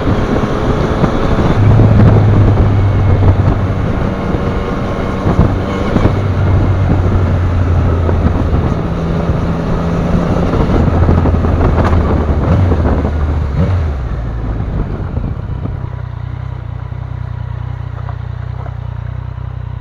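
Yamaha Niken GT's three-cylinder engine running under way, its note rising and falling, over rough noise and wind on the microphone. About fourteen seconds in it eases off and settles to a quieter, steady low engine note.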